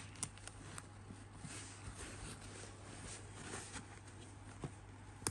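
Zipper of a nylon tool bag being worked open, a faint rasp with a few light clicks as the bag is handled.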